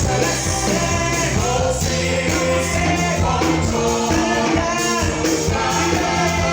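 Live gospel praise-and-worship music: a church band playing with several voices singing together.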